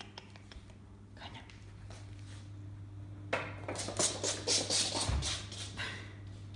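Rapid clicking and scrabbling of an American Shorthair kitten's claws on a laminate floor as it dashes off, lasting about two and a half seconds from about halfway through, with one low thump near the end of the run.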